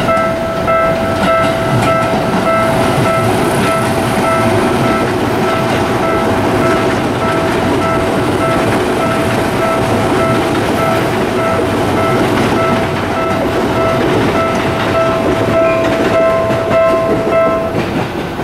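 Japanese level-crossing alarm ringing in a fast repeating chime as a Seibu 10000 series electric train rumbles past, its wheels clacking over the rail joints. The alarm stops near the end as the train clears the crossing.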